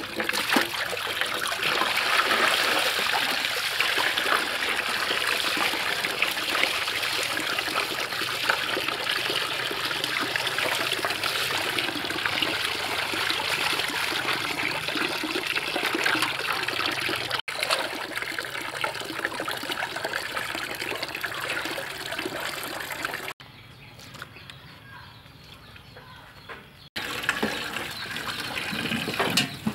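Tap water pouring into a large metal basin of water, with hands splashing as raw meat and then greens are rinsed. The splashing is steady, then drops to a quieter stretch for a few seconds near the end.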